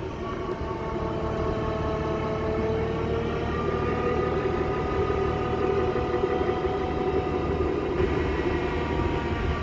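Skid steer running a 6 ft Legend hydraulic mower attachment: a steady engine rumble with a whine that drifts slowly in pitch.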